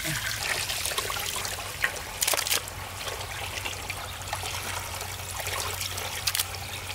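Water trickling and dripping as cut chunks of wallago catfish are washed by hand in aluminium basins, with a few brief sharper splashes.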